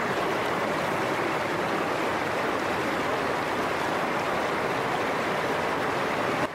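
A small stream running over soil and stones, fed by a little cascade, making a steady rushing splash of water.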